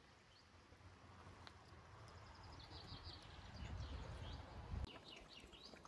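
Small birds chirping in short repeated calls over the faint, steady babble of a shallow rocky stream. The calls come in about halfway through. A low rumble swells beneath them and stops abruptly near the end.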